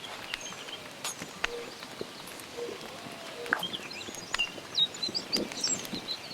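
Wild birds chirping and whistling, busier in the second half, with scattered sharp crackles and snaps from a small cooking fire.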